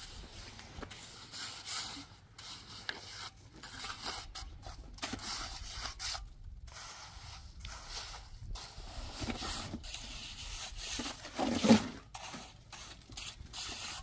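Uneven scraping and rubbing strokes, one after another with short pauses, with a louder, lower sound about twelve seconds in.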